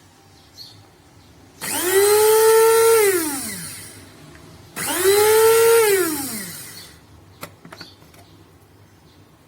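Electric blade coffee grinder's 300 W motor switched on twice in short pulses. Each time it spins up quickly to a steady high whine for about a second, then winds down with a falling pitch once released.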